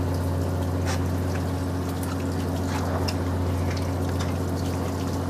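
Steady low hum of the fishing boat's motor, with water running and trickling over it.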